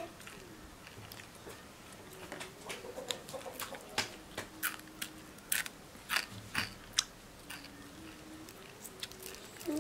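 Eating crispy grilled frogs: chewing, with sharp crunches and crackles that start about two and a half seconds in and come often after that.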